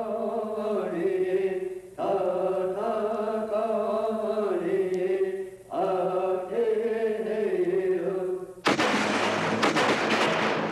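Native American chanting: a sung line in three phrases whose pitch steps down and back up. Near the end it is cut off by a sudden loud burst of crackling noise.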